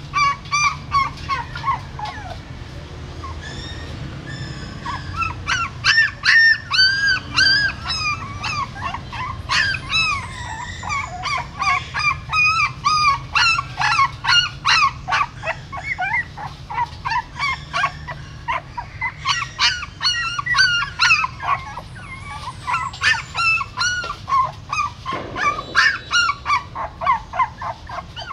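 Newborn puppies whimpering and squealing: a dense run of short, high-pitched cries that rise and fall, several a second from more than one puppy, thinning out briefly near the start.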